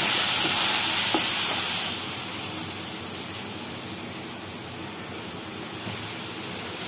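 Onions and ground spices in hot mustard oil in a kadai, just splashed with a little water, sizzling hard for the first two seconds. It then settles to a softer steady sizzle as the masala fries.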